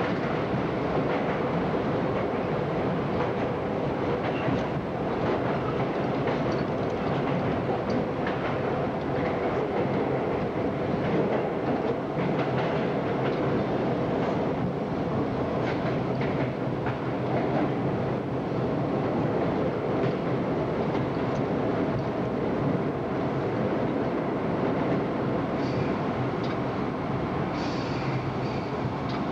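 R32 New York City subway train running through a tunnel and into a station: a steady rumble of steel wheels on rail with clicking over the rail joints. Near the end, a faint high squeal as the train brakes toward its stop.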